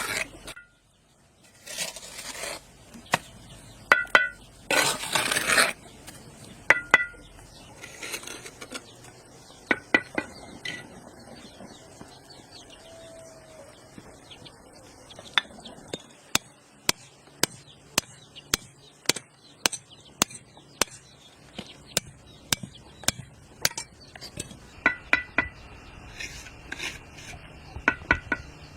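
Metal cookware and utensils clinking and knocking, some strikes ringing briefly, with a run of evenly spaced knocks in the middle and a couple of short scrapes near the start.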